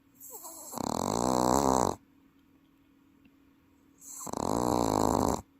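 Welsh corgi snoring loudly, two long snores about four seconds apart, each starting softer and swelling louder. The snoring is deep enough to pass for an adult person's.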